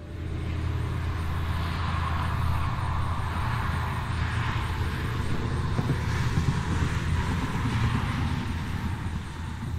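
Road traffic noise: a steady low rumble of passing vehicles with a wash of engine and tyre noise. It comes in suddenly and eases off near the end.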